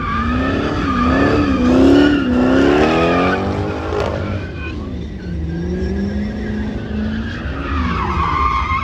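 A car's engine revving hard in a burnout, its pitch climbing and dipping, with its tires squealing and skidding as it spins donuts.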